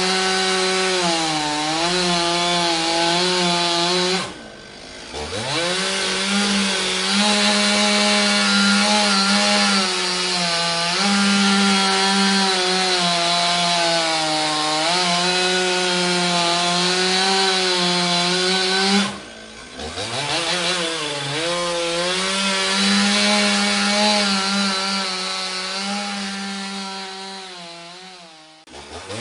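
Chainsaw running at high revs as it cuts wood. Twice it briefly drops off and winds back up in pitch, and near the end it trails away before picking up again.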